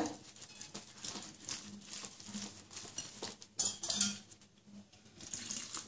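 Wire whisk stirring a thick atta-and-semolina batter in a glass bowl: irregular light ticks and scrapes of the metal wires against the glass, a few louder strokes near the middle.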